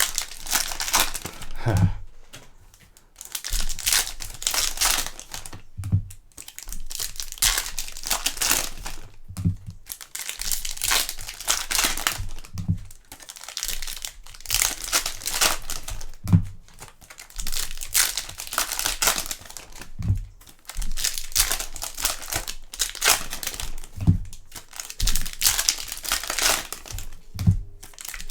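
Foil trading-card pack wrappers crinkling and tearing as packs are opened and handled, with a dull knock every three to four seconds.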